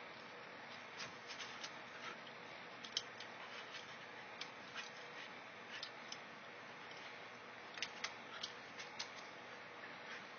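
Irregular light clicks and taps, in scattered clusters, from a corgi and a cat at play, over a steady hiss.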